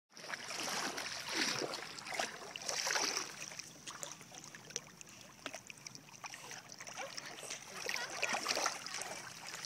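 River water sloshing and splashing as a dog paddles close by, with small splashes and drips, and louder rushes of water every few seconds.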